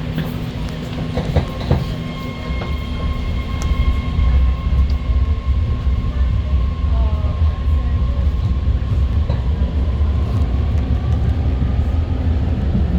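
BART train running on the rails, a heavy low rumble that grows louder about four seconds in, with a thin, steady high-pitched whine above it.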